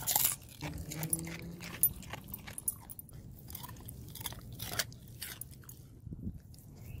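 Siberian husky biting into a raw cucumber held in a hand and chewing it: irregular crisp crunches, the loudest at the first bite.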